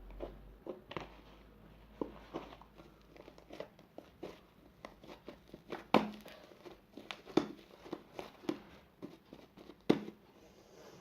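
Fluffy shaving-foam slime being squeezed and stretched by hand, making irregular small clicks and pops. Two louder pops come about six and ten seconds in.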